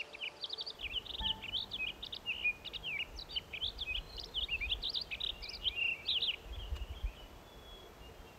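Small songbirds twittering in a rapid, continuous run of short high chirps that thins out near the end, over a low rumble.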